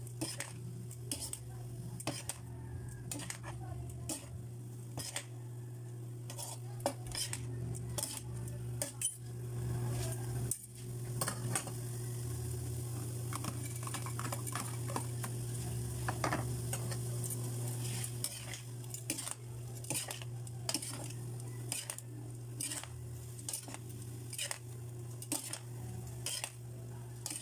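Metal spatula and tongs scraping and clinking against a metal wok as rice vermicelli noodles are stir-fried, with the noodles sizzling in the pan. A steady low hum runs underneath.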